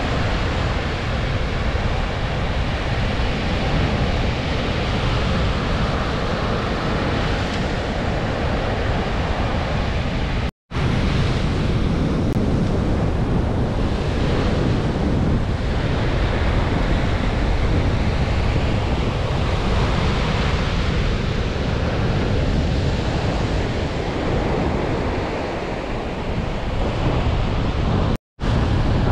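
Baltic Sea surf breaking steadily under a strong storm wind, with the wind buffeting the microphone. The sound cuts out for an instant twice.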